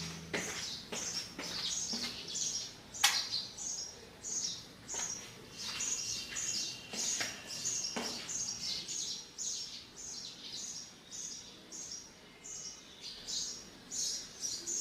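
A bird chirping over and over, short high chirps at about two a second, with a couple of sharp clicks in between.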